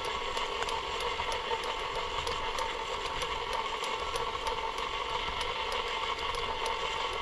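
KitchenAid tilt-head stand mixer running steadily, its motor giving an even whine with faint regular ticks a few times a second, as it mixes crispy rice cereal and oats into cookie dough until just blended.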